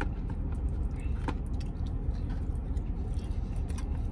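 Low steady rumble inside a vehicle's cab, with faint scattered clicks and crunches of a man chewing breaded fried food.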